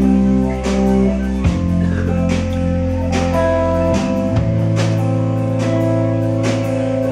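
Instrumental post-rock band playing live: sustained low bass notes that change pitch twice, under layered guitar tones, with regular drum and cymbal hits.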